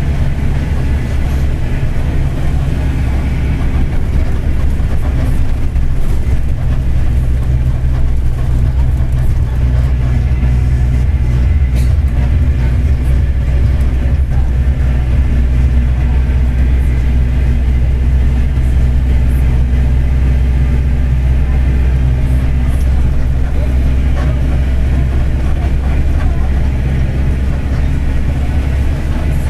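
Mercedes-Benz OF-1721 BlueTec 5 bus's four-cylinder diesel running at a steady pace, with a low growl from the driveshaft (cardan).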